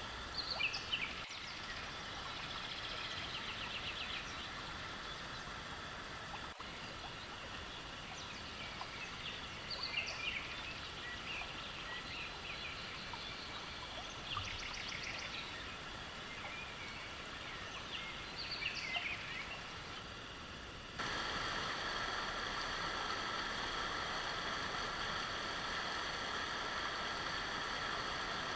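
Birds calling in short bursts of chirps and trills every few seconds over a steady background hiss of flowing river water. About 21 seconds in, the sound changes abruptly to a louder, steady rush of water with no calls.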